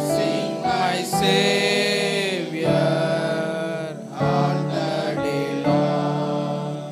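Group of boys and young men singing a song together in sung phrases, several voices through a microphone.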